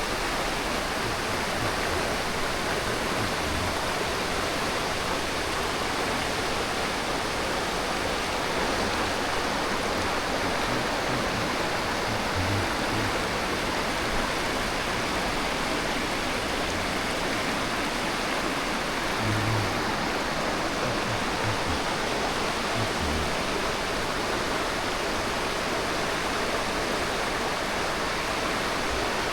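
Stream water rushing steadily, an even, unbroken flow, with a few soft low bumps.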